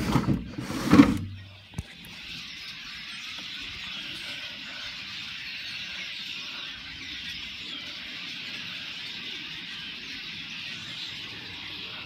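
A large flock of birds in the treetops, many calling at once in a dense, steady, high chatter. A couple of bumps and a click from the phone being handled come in the first two seconds.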